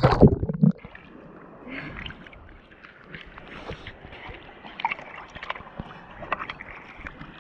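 Sea water splashing and lapping against a waterproof camera held at the surface, dipping in and out of the water with muffled gurgling. A loud splash comes right at the start, then softer sloshing and small splashes.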